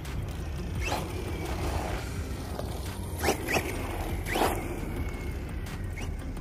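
Redcat Volcano EPX PRO brushless RC monster truck running: a faint motor whine over a steady low rumble, with several short rushing sweeps as it drives, the loudest about three and a half and four and a half seconds in.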